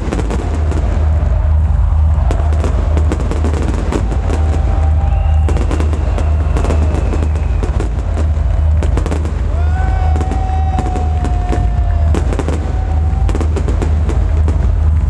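Fireworks crackling and banging over loud dance music with a heavy, pulsing bass beat from a stadium sound system.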